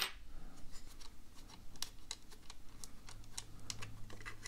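Irregular small clicks and rubbing from hands handling a Canon EOS 600 film SLR's plastic body and loosened battery compartment cover.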